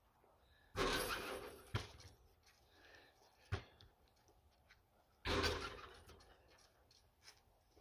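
A basketball crashing against the rim and backboard of a portable hoop with a ringing rattle that dies away over about a second, twice, with a couple of sharp thuds of the ball bouncing on asphalt in between.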